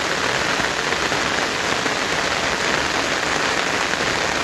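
Heavy rain falling steadily, an even, unbroken wash of sound.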